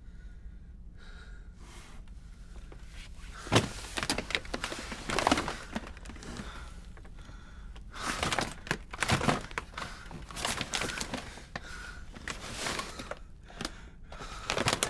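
Irregular knocks, thuds and scrapes, starting about three and a half seconds in, over a steady low hum.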